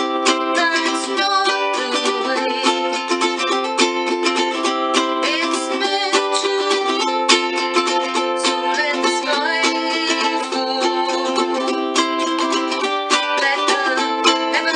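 Acoustic ukulele strummed in a steady rhythm, playing the chords of a song, with a woman's voice singing over it.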